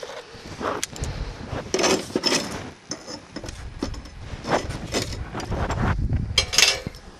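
Light metal clinks and scrapes as bar offcuts and locking pliers are handled on a steel checker plate, a handful of scattered clinks over a low rumble.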